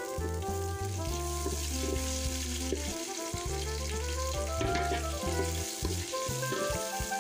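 Chopped onion, garlic and ginger sizzling in hot oil in an aluminium pot, stirred with a wooden spatula, under instrumental background music.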